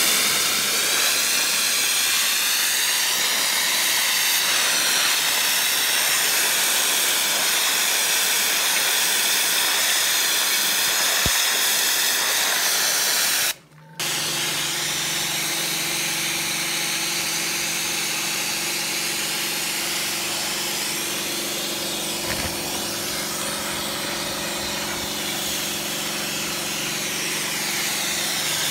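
A loud, steady high-pressure jet hissing for about 13 seconds. After a short break, a pressure washer runs with a steady motor hum under the hiss of its water spray.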